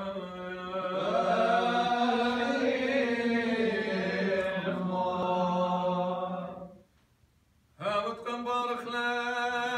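Solo liturgical chant of the closing blessing of a Chaldean Divine Liturgy, one voice holding long steady notes. It fades out about seven seconds in and starts again abruptly a second later.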